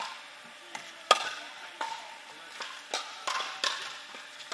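Pickleball paddles striking a hard plastic ball, about eight sharp pocks spread irregularly through a rally, with hits from several courts. The loudest lands a little after a second in, and each rings briefly in a large indoor hall.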